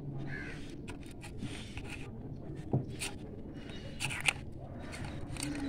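Hands kneading soft poori dough in a steel bowl: squishing and scraping of dough and fingers against the metal, with a few sharp clicks, the loudest about four seconds in.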